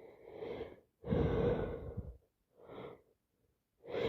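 A woman with a heavy head cold taking loud, gasping breaths, three or four in a row with short gaps, as another sneeze builds.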